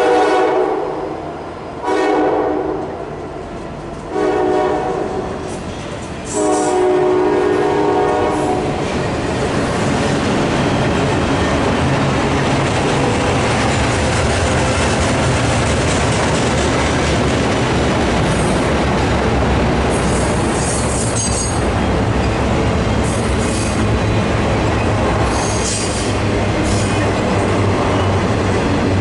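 Norfolk Southern locomotive horn sounding four blasts, the last one longest, in the long-long-short-long pattern of a grade-crossing signal. Then the steady rumble and clickety-clack of loaded double-stack intermodal cars rolling past, with brief high wheel squeals now and then in the second half.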